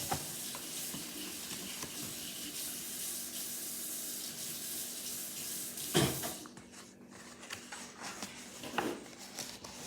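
Water running from a tap into a sink in a steady hiss, shut off about six seconds in with a knock, followed by a few faint clicks and handling sounds.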